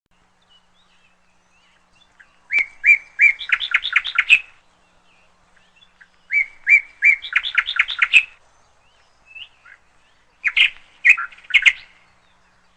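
A small songbird singing three short phrases, each opening with a few separate notes and speeding into a quick run of chirps, with short pauses between phrases.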